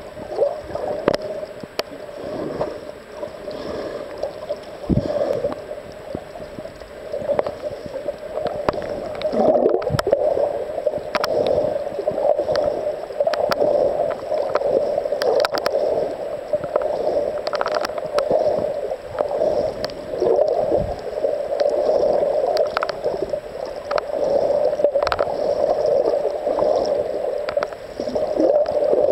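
Muffled underwater noise picked up by a camera submerged in shallow sea water: a steady dull wash with gurgling and many scattered sharp clicks and crackles.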